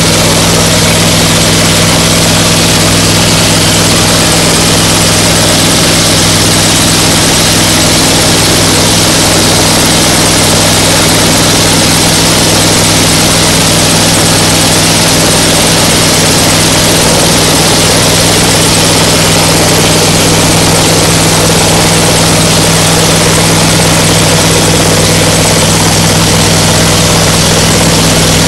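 Orchard frost-protection wind machine running: the propane-fuelled engine at the tower base driving the two-bladed fan overhead, a loud, steady drone that does not change.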